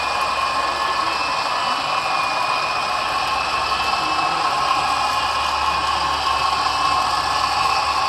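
Rapido HO-scale Alco PA diesel model locomotives running steadily with their passenger train, a continuous mechanical drone with a steady hum that does not change pitch.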